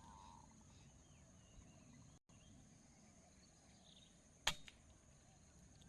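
A single sharp shot from a high-pressure air rifle about four and a half seconds in, over faint insect buzz and bird chirps.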